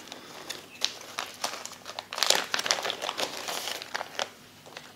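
Clear plastic tackle packet crinkling as it is handled, in irregular crackles that are busiest about halfway through and die away near the end.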